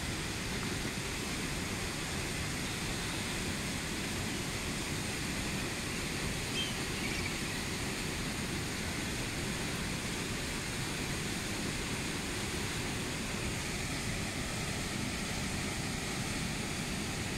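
Steady rush of a fast-flowing river.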